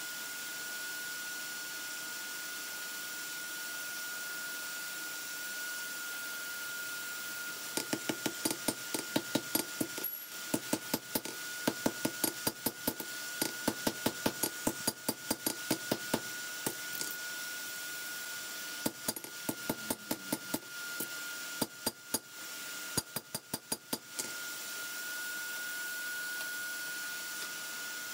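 Hand hammer forging a steel lawnmower blade held in tongs on an anvil: quick, sharp blows at about three or four a second, first in a run of about eight seconds, then in three short runs. A steady hiss with a faint steady whine lies under it.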